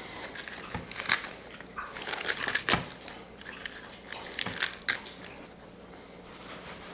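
Crinkling and rustling from something being handled, with sharp clicks and knocks about a second in, near the middle and about five seconds in.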